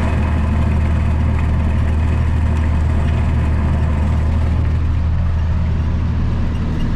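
Farm tractor engine running steadily at a constant speed, a deep even hum.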